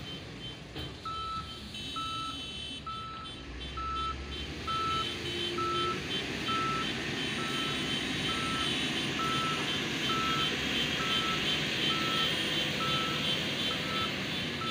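A tipper truck's warning beeper sounds a steady series of single high beeps, about one every three-quarters of a second, starting about a second in, over the truck's engine running.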